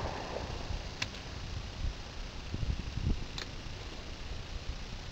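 The echo of a shotgun shot dies away at the start, then there is a quiet background with two faint, sharp clicks and a couple of low bumps.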